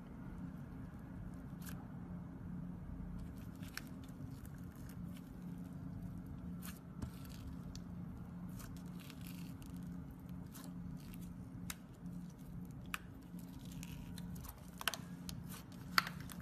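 Slime mixed with sequins and foam beads being squished and pressed by hand: scattered small clicks and crackles, with a few sharper pops near the end, over a steady low hum.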